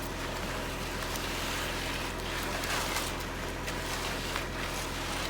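An engine running steadily, a low even hum under a constant hiss, with a few faint ticks.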